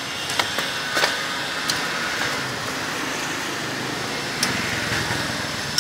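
Steady hum of street traffic, with a passing vehicle swelling a little about four seconds in, and a few light clicks and clinks of utensils against a metal soup pot.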